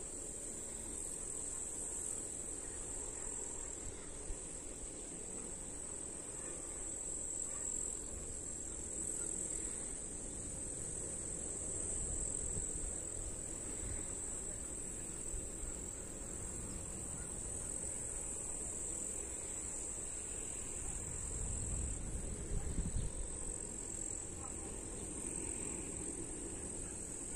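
Crickets or bush crickets chirring in a steady, unbroken high-pitched chorus from the grass. Wind buffets the microphone in low gusts, strongest a little past the middle.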